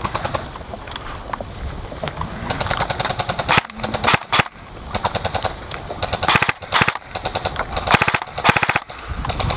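Airsoft guns firing several bursts of rapid shots, the longest about a second long starting a couple of seconds in.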